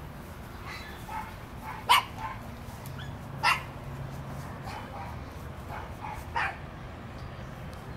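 A dog barking: a few short single barks spread out, the loudest about two seconds in, with fainter ones between.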